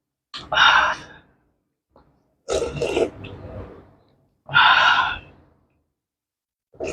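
Close-up mouth sounds of a person eating soup: three short bursts of slurping and breathy exhaling, each about a second long.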